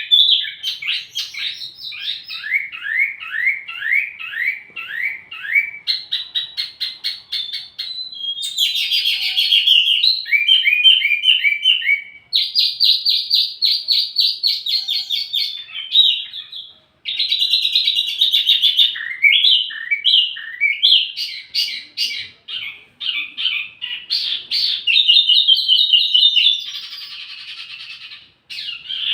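Wambi mini bird song: rapid high-pitched chirps and trills, including runs of short falling notes, with the phrase type switching abruptly every few seconds as in an edited training recording.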